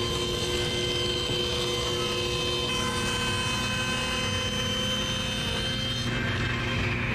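Table saw running and ripping a sheet of 3/4-inch plywood: a steady whine with several fixed tones, holding level through the cut.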